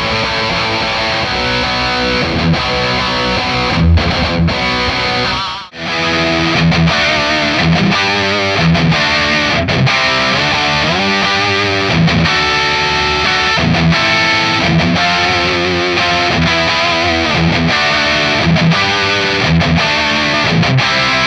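Distorted electric guitar played through Overloud TH-U's Kally amp model: first its OD2 channel into a simulated 4x12 cabinet with V30 speakers, then, after a brief break about six seconds in, its OD1 channel with an 80s-style rhythm tone.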